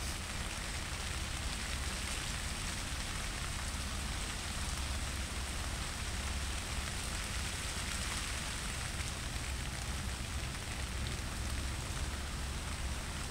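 Steady hissing noise with a low rumble beneath it, unchanging throughout, with no distinct strokes or knocks standing out.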